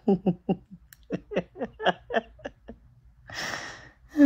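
A woman laughing in a run of short 'ha' sounds, about four a second, each dropping in pitch. Near the end comes a long breathy exhale.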